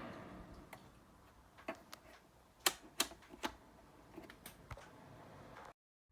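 A steady rushing noise dies away over the first second, then a scattered series of small sharp clicks and taps, about ten, irregularly spaced. The sound cuts off abruptly near the end.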